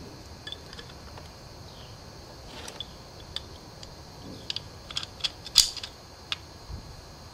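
Scattered light metal clicks and clinks as a drum-brake star-wheel adjuster is handled and fitted between parking brake shoes, with one louder click about five and a half seconds in.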